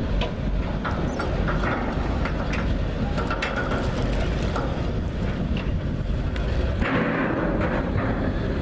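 Wind rumbling on the microphone over the running engines of M3 amphibious bridging vehicles working on the river, with a few faint knocks.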